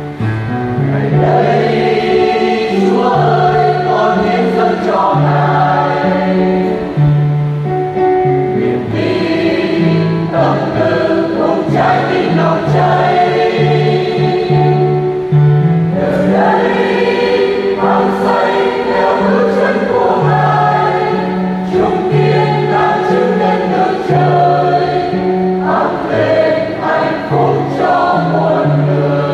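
A church choir singing a Vietnamese Catholic hymn over instrumental accompaniment with a steady, moving bass line.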